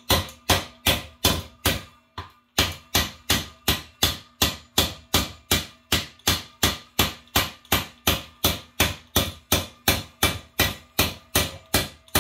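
Steady hammer blows on metal, about two and a half a second with a short pause about two seconds in, each strike leaving a faint ring: hammering on a seized Honda engine's piston to try to break it free, which barely moves.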